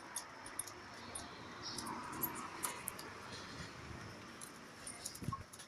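Dogs moving about: faint scattered clicks and a light jingling, with a brief low thump near the end.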